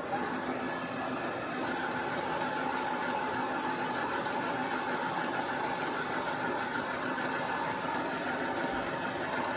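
Manual metal lathe running steadily, its three-phase motor and headstock gearing driven from a single-phase VFD, while a carbide tool turns an aluminium bar. It gives a steady running noise with a few faint steady tones and does not change.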